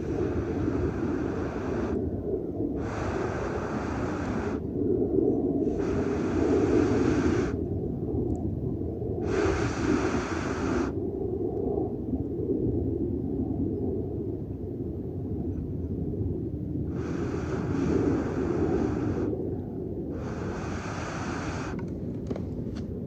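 A person blowing hard into a Swedish torch log fire to coax it into catching: six long blows of about one and a half to two seconds each, with a longer pause midway, over a steady low rumble.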